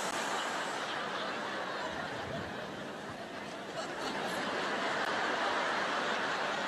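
Large audience laughing steadily, the laughter swelling again about four seconds in.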